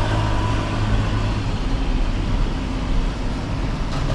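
Street traffic noise: a car running close by, engine and tyres, over a steady urban background.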